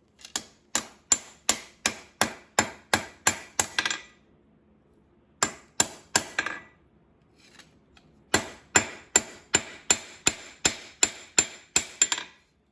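Blacksmith's hand hammer striking hot steel on an anvil, forging the end of a hold fast. The blows come about three a second, each with a short bright ring: a run of about ten, a pause, three more, another pause, then a run of about a dozen.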